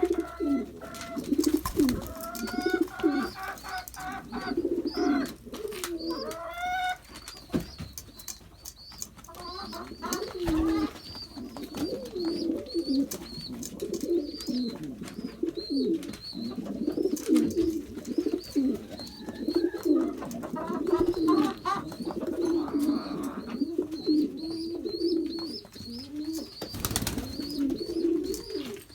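Several loft pigeons cooing over and over, with overlapping low, warbling calls throughout. A thin, high chirp repeats above them, and in the first few seconds there are some rising calls and scattered clicks.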